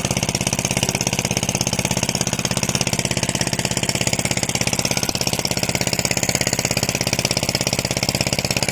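A small engine running steadily at idle, with an even, rapid chugging beat.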